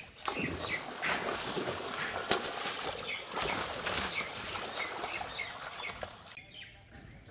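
Water splashing and slapping as a big fish caught in a cast net thrashes against a wooden boat deck, with short bird chirps repeating over it. The splashing dies down sharply near the end.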